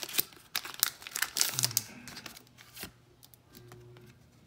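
Foil wrapper of a Pokémon trading-card booster pack crinkling and tearing as it is ripped open by hand. It comes in quick crackling bursts through the first part, then thins out to quieter handling.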